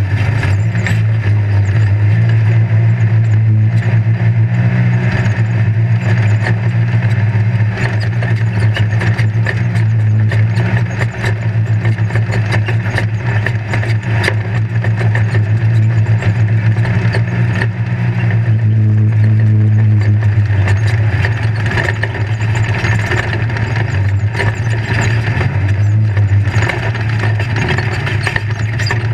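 Off-road race vehicle's engine running hard in a steady drone, heard from inside the caged cab. Constant rattling and knocking come from the chassis as it bounces over rough dirt.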